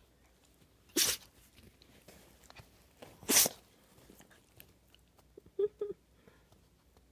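A dog sneezing twice, about two seconds apart: sharp, hissing bursts in an ongoing sneezing fit that the owner puts down to allergies. A brief pitched sound follows a couple of seconds after the second sneeze.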